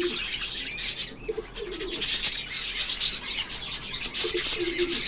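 A flock of birds calling: dense, rapid, high chirping from many small birds, with short low cooing notes repeated a few times through it.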